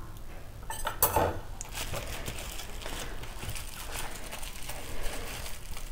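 Metal cutlery being handled and set into its cardboard box, with a cluster of clinks and packaging rustle about a second in, then scattered light ticks and rustling.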